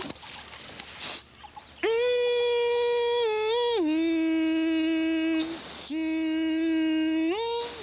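A voice singing a slow wordless tune in long held notes: one high note, then a step down to a lower note held for several seconds. There is a sharp intake of breath in the middle, then the low note resumes and rises back up near the end.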